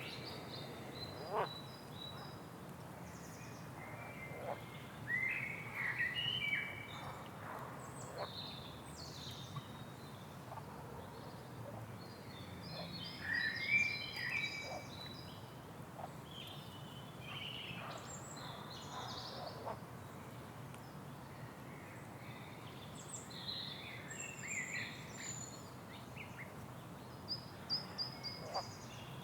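Several birds chirping and trilling in short, scattered calls, over a steady low background hum.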